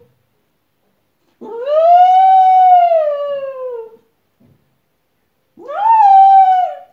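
Small dog howling: two long howls, the first rising and then sliding slowly down over about two and a half seconds, the second shorter, near the end.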